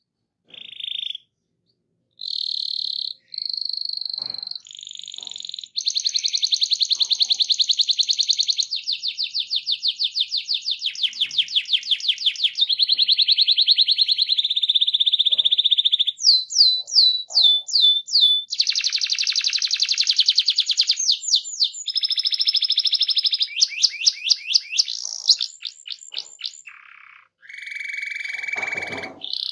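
Domestic canary in full song (gacor), singing a long rolling song: rapid high trills and held buzzy phrases that change every second or two, with a run of quick downward-sweeping notes about halfway through.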